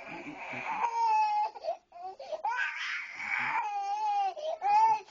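Toddler crying: two long wails, the second starting about two seconds in after a short break for breath.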